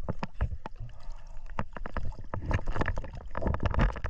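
Choppy sea water slapping and splashing against a camera at the waterline, in many irregular splashes and knocks.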